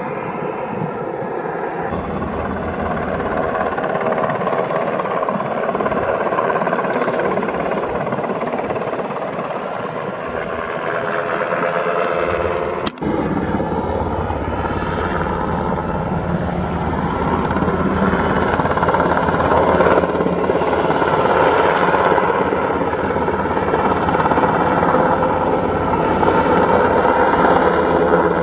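Sikorsky UH-60 Black Hawk helicopter, its rotors and twin turbine engines running continuously as it carries a slung load on a long line. There is a brief dropout about halfway through, after which the sound is heavier in the low end and grows louder toward the end.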